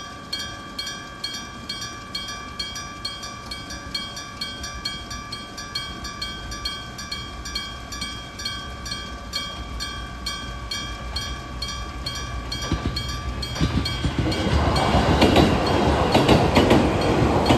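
Iron electric bell of a railway level crossing ringing with steady, even strikes, a little over two a second, its tone hanging between strikes. About thirteen seconds in, a train passing over the crossing grows loud with rumble and wheel clatter, covering the bell's tone while the strikes carry on.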